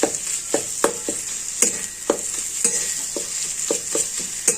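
Crushed ginger and spices sizzling as they fry in ghee in a kadhai, with a steady high hiss. The mixture is being stirred: the utensil scrapes and knocks against the pan two or three times a second.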